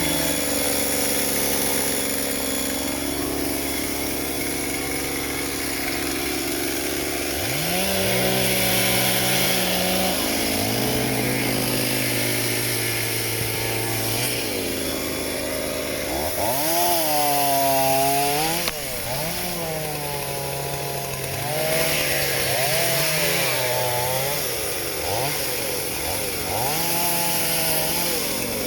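Two-stroke chainsaw running while felling trees, its engine revving up and down over and over as it cuts, with steadier stretches between.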